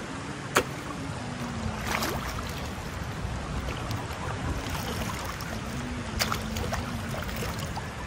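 Shallow sea water lapping at the shore with a steady low wind rumble on the microphone and a faint wavering hum beneath. A few sharp splashes or knocks stand out, the first about half a second in as a thrown plastic toy lands in the water.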